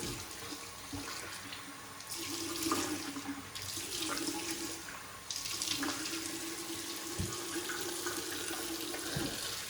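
Water running from a sink tap, with hands scooping and splashing it onto the face to wet it before shaving; the splashing comes in a few louder swells.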